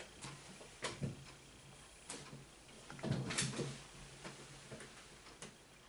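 Close handling noise: a few light knocks and clicks, with the loudest cluster about three seconds in.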